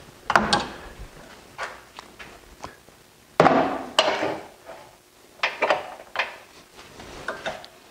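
Metal clunks and clicks of a wood lathe's tailstock being slid along the bed and locked, its live center brought up against the burl blank. About a dozen separate knocks, the loudest about three and a half seconds in.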